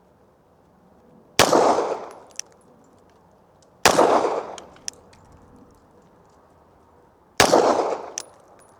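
Three single 9mm pistol shots from a Glock 17, fired slowly and a few seconds apart, each with a short echoing tail. A few faint clicks come between the shots.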